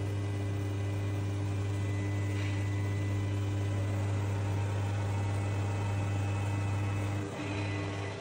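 CWT Multi-Bal 5500 crankshaft balancing machine spinning a crankshaft with its pulley and flywheel fitted, making a steady mechanical hum with a brief hitch about seven seconds in. This is a check spin, and the assembly reads as balanced to tolerance.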